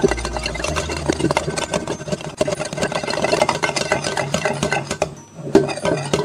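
Metal wire whisk beating a thin liquid slime mixture in a glass bowl: rapid, continuous clicking and sloshing as the tines rattle against the glass. It briefly lets up about five seconds in.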